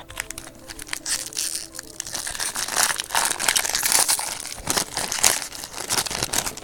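Foil wrapper of a baseball card pack being torn open and crinkled. The dense crackling starts suddenly and cuts off suddenly.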